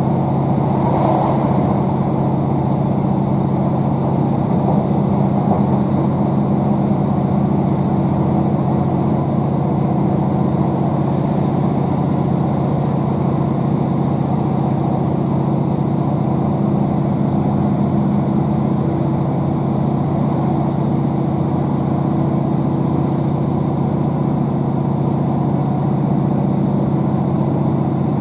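MAN D2876 inline-six diesel engine slung under the Class 769 coach running steadily under power, with constant wheel and rail noise of the moving train. A brief rush comes about a second in as the train passes under a bridge.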